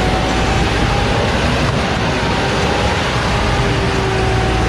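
Heavy vehicle running steadily under load, a loud continuous rumble with a faint steady whine.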